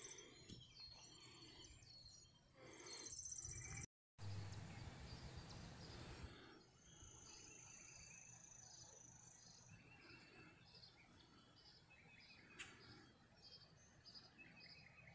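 Faint outdoor ambience of birds chirping. A low wind rumble on the microphone fills the first six seconds. After that a bird repeats a short high chirp about every two-thirds of a second.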